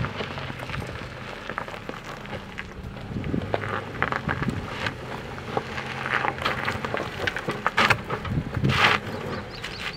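2024 Subaru Crosstrek creeping slowly over a rocky dirt trail: its Falken tyres crunch and crackle over gravel and stones above the low, steady hum of its boxer four-cylinder engine, with louder crunches near the end.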